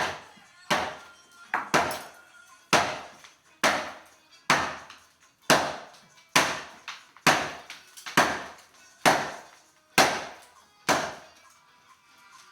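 Hammer blows struck at a steady pace of about one a second, a dozen strikes, each sharp and briefly ringing, stopping shortly before the end.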